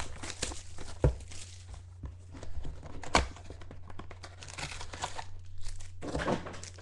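A cardboard trading-card box of 2013 Topps Finest football being opened by hand, and its foil card packs handled: crinkling and tearing of cardboard and wrapper, with two sharp clicks about a second in and about three seconds in, and a louder rustle near the end.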